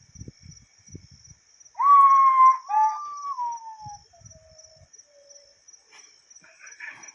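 Common potoo singing its mournful whistled song: a loud first note followed by about three more, each lower and fainter than the last. Crickets trill steadily underneath.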